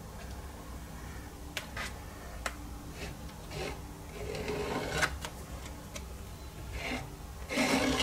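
A plastic credit card scraping thick acrylic paint across a stretched canvas: several scraping strokes, the loudest near the end, with a few small clicks in between.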